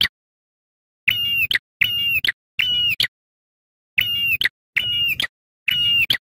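Ashy tailorbird (prenjak kepala merah) calling: six sharp, shrill calls of about half a second each, in two runs of three, each cut off by dead silence.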